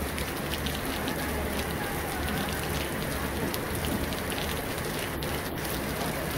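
Steady rain falling, with many close raindrops ticking.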